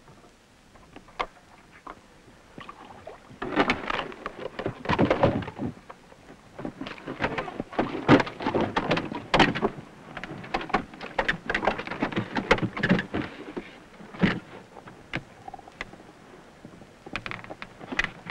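Irregular knocks, thuds and scrapes on the wooden planks of a small fishing boat as a fish is hauled aboard on a hand line and handled. The knocks come in clusters, busiest in the middle.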